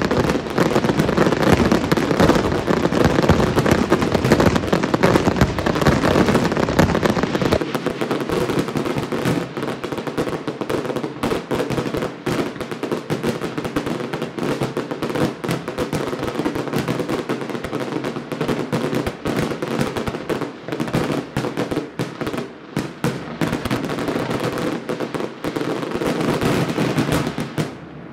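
Aerial fireworks display: a dense, continuous barrage of bangs and crackling, heaviest and loudest for the first seven seconds or so, then a steady rapid crackle that cuts off at the end.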